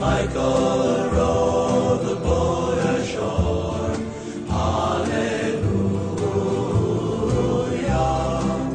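Background music: a song with choral singing over a steady bass line.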